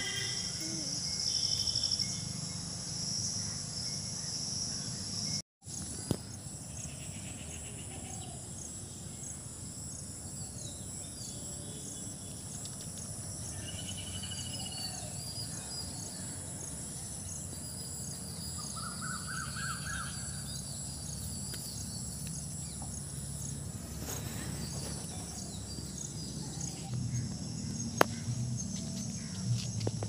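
Outdoor field ambience: insects trilling steadily and high, with a few short bird calls scattered through. The sound drops out for a moment about five seconds in, and there is a sharp click near the end.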